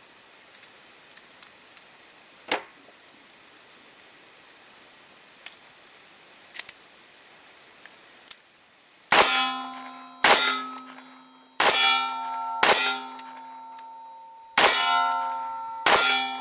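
A revolver's hammer falling single action and setting off Winchester primers: six sharp shots about a second apart, each followed by a metallic ringing, with lighter clicks of handling and cocking before and between them. Every primer fires, with no misfires.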